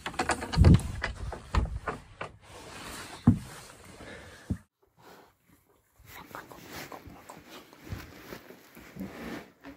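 Footsteps and handling knocks on a wooden floor, with several loud low thumps. About halfway through the sound cuts to quieter rustling of clothing and phone handling.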